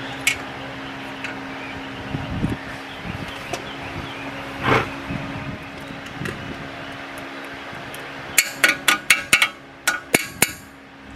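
Sharp metal-on-metal taps as a cotter pin is tapped out of the castle nut on a Ford F-150's outer tie rod end: a few scattered taps, then a quick run of about eight near the end. A steady low hum runs underneath.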